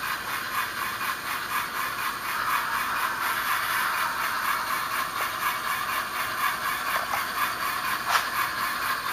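Tsunami DCC sound decoder in a Bachmann HO-scale geared steam locomotive model playing an even, rapid exhaust chuff through the model's small, tinny speaker as it runs. A single sharp click about eight seconds in.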